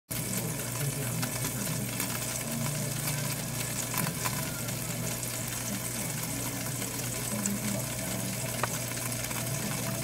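Toaster oven running with its top heating element glowing: a steady low hum under an even hiss, with faint scattered crackles.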